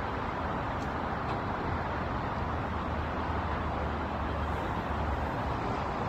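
Steady wash of distant road traffic, an even rushing noise of tyres and engines with a low hum beneath it.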